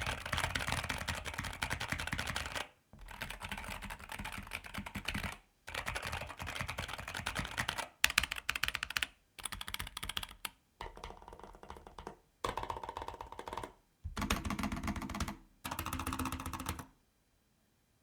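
Typing on a NuPhy Air75 V2 low-profile mechanical keyboard: fast runs of key clicks in bursts of two to three seconds with short pauses between them, stopping about seventeen seconds in.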